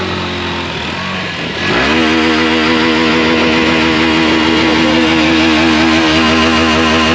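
Hero Xtreme 160R's single-cylinder engine running low, then revved up a little under two seconds in and held at a steady higher speed, blowing water out of the silencer after a river crossing.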